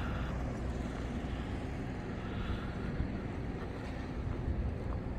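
Outdoor ambience of a city square: a steady low rumble with a fainter, even hubbub above it and no distinct events.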